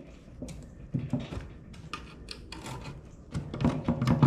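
Metal scraping, clinking and knocking as a tool and hand work at the oil pan of an upside-down Chevy 283 small-block V8, trying to free it from the block. The knocks are scattered at first, then come quicker and louder near the end.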